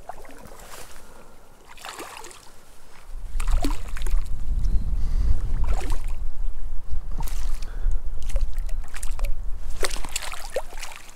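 Water splashing and sloshing as a hooked cutthroat trout thrashes at the surface and is scooped into a landing net. From about three seconds in, a low rumble on the microphone runs under the splashes and is the loudest sound.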